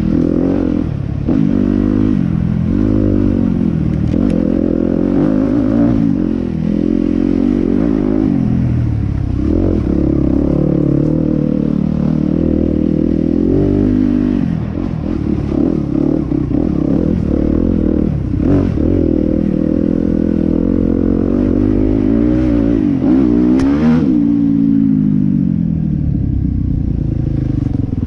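Yamaha WR250F's 250 cc four-stroke single-cylinder engine with an Akrapovič exhaust, ridden hard, its pitch rising and falling again and again as the throttle is opened and closed.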